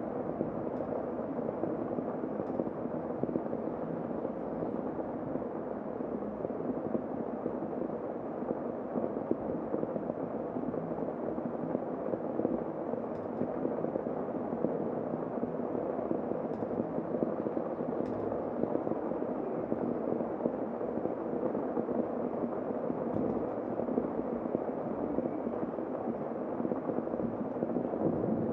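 Heavy rain falling steadily, heard from inside a room, with a few faint ticks of single drops here and there.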